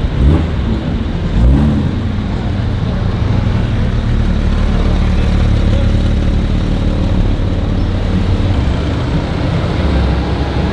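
Car engine running with a steady deep rumble, surging briefly twice near the start.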